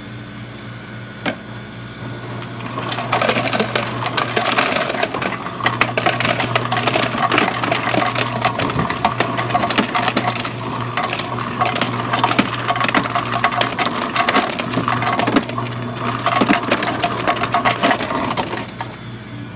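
Hotel ice dispenser running, with ice cubes clattering continuously into an ice bucket. The clatter starts about three seconds in and stops shortly before the end, over a steady low hum.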